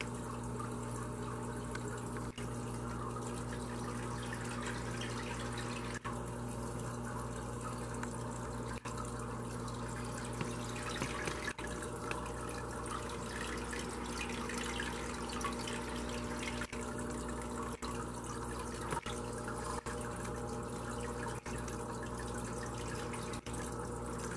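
Aquarium filter running: water trickling and splashing into the tank steadily, over a low steady hum.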